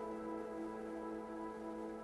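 Ambient space music: a slow, sustained drone of layered held tones, with no beat.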